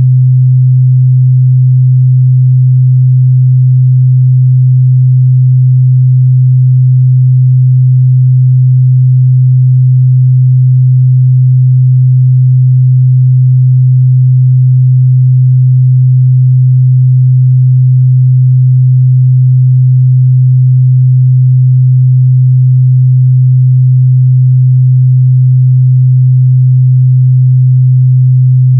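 Pure 128 Hz sine-wave test tone, a steady low hum held at constant pitch and loudness. It is used to check how a speaker or headphones reproduce mid-bass.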